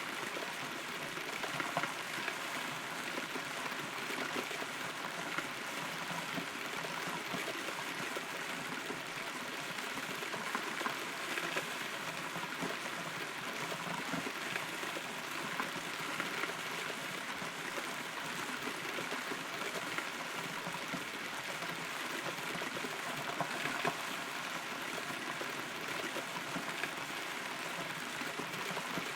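Steady rain heard from inside a hollow, rotten tree trunk: a dense patter of drops striking the wood, with scattered louder single drops.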